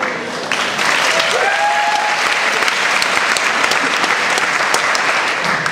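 Audience clapping, swelling about half a second in and dropping away near the end, with a brief cheer from the crowd partway through.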